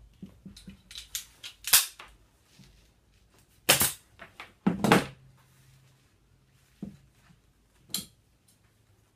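Pneumatic upholstery staple gun firing staples through bonded polyester padding into a wooden chair frame: several sharp shots a second or more apart, with soft rustling of the padding between them.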